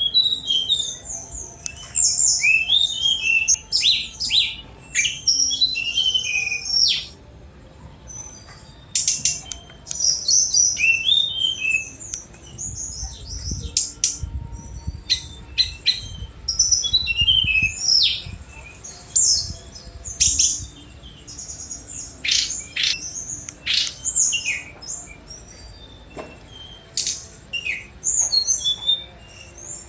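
Tledekan gunung (fulvous-chested jungle flycatcher) singing a fast, varied song. The song is made of high whistles, quick rising and falling notes and rapid sharp chips, delivered in phrases with short pauses between them.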